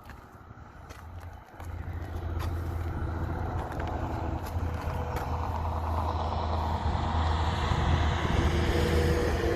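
Heavy truck's engine rumble with road noise, starting about a second and a half in and growing steadily louder as it approaches.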